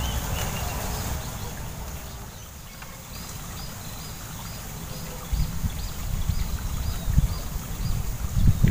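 A bird repeating a short high chirp about three times a second, over low wind rumble on the microphone that gusts louder in the second half.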